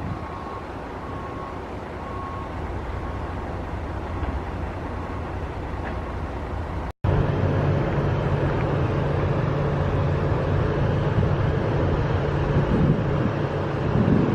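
Steady rumble of a commuter train at a station. After an edit about halfway through, it is louder, with a steady low drone from the diesel locomotive's engine.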